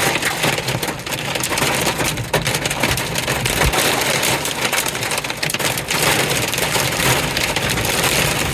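Heavy thunderstorm rain driven by very strong winds, a dense steady hiss with sharp patters of drops striking.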